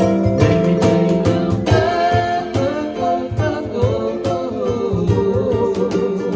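Live band playing a reggae song: sung vocal over guitar, bass and a steady drum beat.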